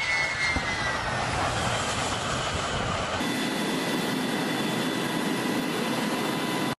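Jet aircraft engine running with a high whine that falls slightly at first. The sound changes abruptly about three seconds in, then holds a steady whine before cutting off suddenly at the end.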